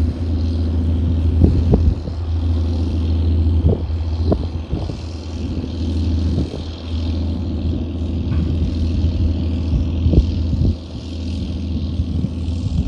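Small fishing boat's engine running steadily as the boat passes at speed: a continuous low drone.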